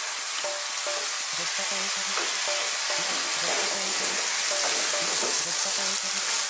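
Beef, onion and tomato sizzling in a frying pan with a steady hiss while cooked lentils are stirred in with a wooden spoon.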